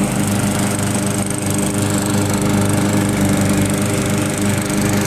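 Briggs & Stratton push-mower engine running steadily at a constant speed.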